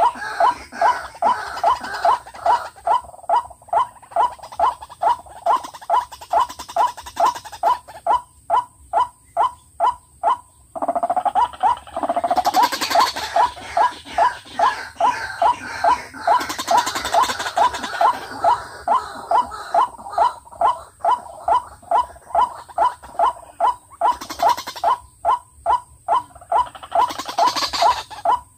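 White-breasted waterhens calling: a steady run of short, croaking 'ruak' notes at about three a second, kept up throughout. Louder, harsher stretches of calling break in about 11, 13, 17 and 27 seconds in.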